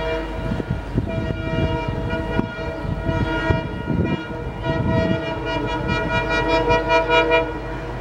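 Horn of a WDP4D diesel locomotive sounding loud, long blasts with a few short breaks over a low rumble. It pulses near the end, then stops shortly before the end.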